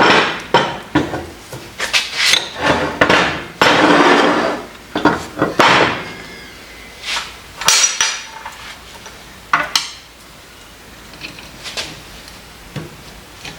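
Metal tools and steel vise parts clanking, knocking and scraping against each other on a workbench, busy at first and then thinning to a few scattered clinks.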